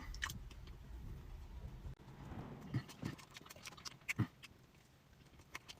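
Quiet eating sounds: a few soft clicks and mouth noises as a bite of lavender cake with lavender cream is taken and chewed.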